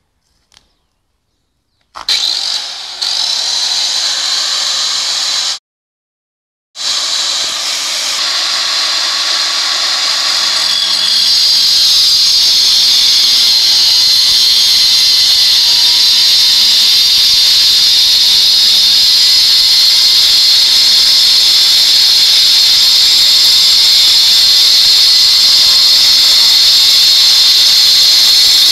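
Angle grinder cutting granite: a loud, steady, high-pitched whine that starts suddenly about two seconds in. It drops out for about a second, then runs on steadily.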